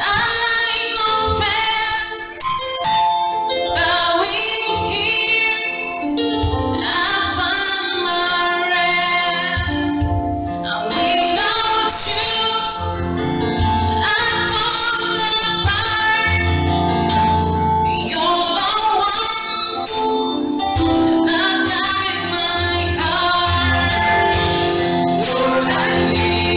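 Gospel song sung by a small mixed vocal group into handheld microphones, the women's voices prominent, over an instrumental backing.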